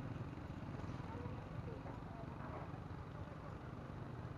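Steady low engine hum, with faint voices over it.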